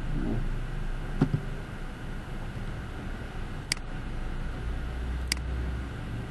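Three sharp computer-mouse clicks, spaced a second or more apart, over a steady low microphone hum.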